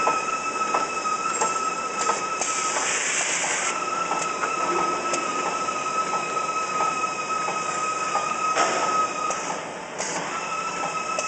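Pocket tissue automatic packing machinery running, with a steady whine, regular clicking a little over once a second and a few short hisses. The whine drops out briefly twice.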